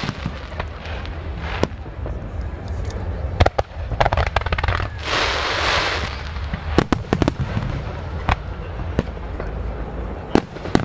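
Aerial fireworks shells bursting in an irregular series of sharp booms over a steady low rumble, with a dense hiss lasting about a second about five seconds in.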